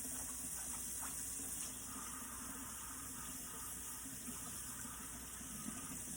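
Kitchen faucet running steadily as a dishwasher filter is rinsed under it in the sink.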